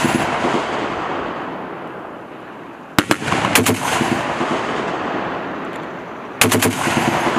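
M2 Browning .50 calibre heavy machine gun firing short bursts of a few rounds each, roughly three seconds apart. Each burst is followed by a long rolling echo that slowly fades.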